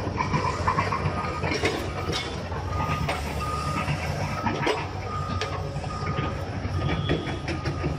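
Bulldozer's diesel engine running with a steady low rumble while a backup alarm beeps over and over, about once a second, with a few sharp knocks among them.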